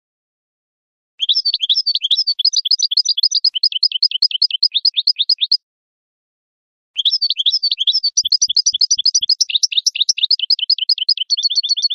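European goldfinch singing: two runs of rapid, high twittering notes, each about four seconds long, separated by a pause of a second or so.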